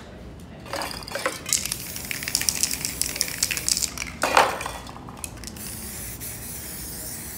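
Quick scraping and crinkling as the painted canvas is worked by hand, then a clink of metal aerosol spray-paint cans as one is taken from the rack. Near the end an aerosol spray can starts a steady hiss.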